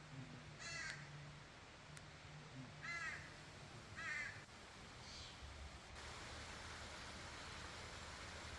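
A bird calling: four short calls in the first five seconds or so, each a quick run of notes, over a faint steady outdoor hiss.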